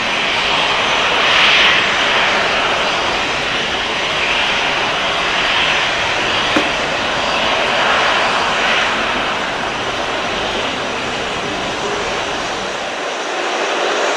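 Jet engines of an Airbus A320 airliner at takeoff power as it lifts off and climbs away: a continuous hissing jet noise that swells and eases every few seconds. A single short click comes about six and a half seconds in, and the deep rumble drops out shortly before the end.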